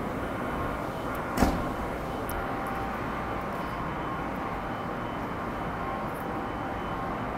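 Steady mechanical rumble and hum on an underground railway platform, with one sharp knock about a second and a half in.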